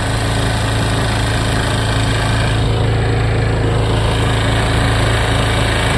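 Proquip 3 hp outboard motor running steadily at a constant pitch, pushing a small foam boat loaded with four people.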